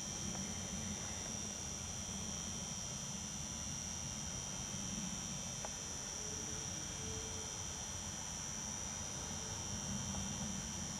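Steady high-pitched insect chorus, typical of crickets on an evening field, with a constant low rumble underneath.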